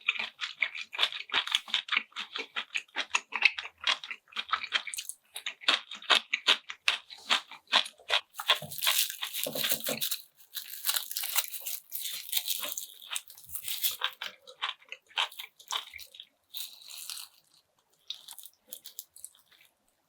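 Close-miked eating sounds: a person chewing food with many quick, crisp crunching bites in a row, densest in the middle and thinning out near the end.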